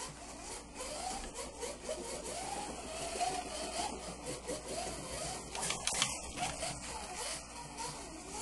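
Small electric motor of a 1/32-scale shark nose Ferrari slot car whining as it laps the track, its pitch rising and falling over and over as the throttle is worked through the corners and straights. A light clicking rattle of the car on the track runs alongside, with a cluster of clicks about six seconds in.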